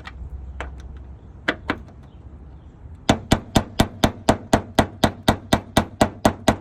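Hammer tapping a flathead screwdriver seated in a rusted, WD-40-soaked license-plate screw, knocking it to break the rust and loosen it. A few scattered taps, then a steady run of about four taps a second from about three seconds in.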